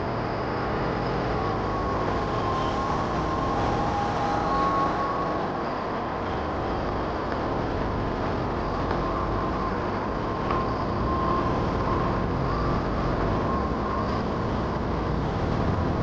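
Steady low rumbling noise, with faint thin wavering tones in the higher range.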